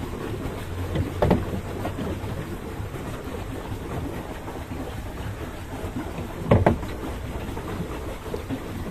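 Wind buffeting a phone's microphone aboard a small paddled boat on calm water. Two brief, louder knocks come about a second in and again about six and a half seconds in.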